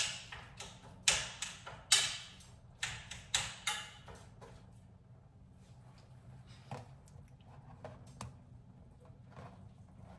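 A spoon chopping and scraping ground meat in a pan, breaking it up as it cooks: a run of sharp strokes in the first four seconds, then fainter, sparser ones.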